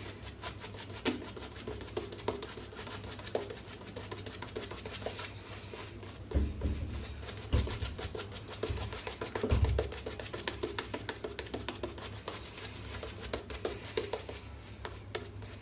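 A shaving brush swirled briskly over a lathered face, building face lather from shaving soap: a fast run of wet, crackling brush strokes, with a few dull thumps in the middle.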